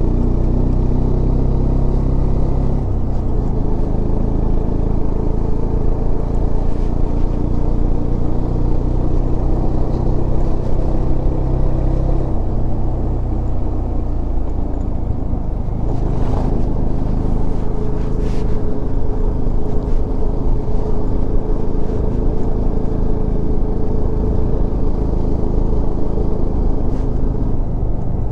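Bajaj Dominar 400 motorcycle's single-cylinder engine running steadily under way, with wind and road noise on the helmet-mounted microphone.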